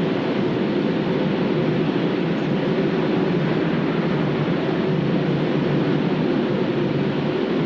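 Breakfast cereal extrusion production line machinery running with a steady, even noise.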